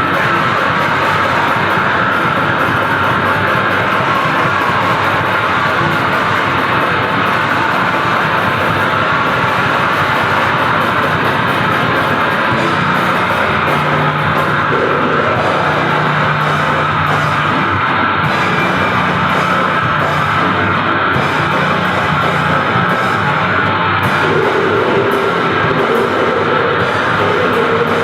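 Grindcore music played by a band: heavily distorted electric guitar, bass and drums, dense and loud without a break.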